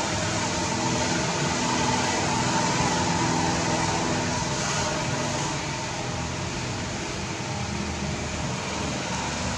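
A steady mechanical drone: an even rushing noise with a faint hum running through it, slightly quieter after about six seconds.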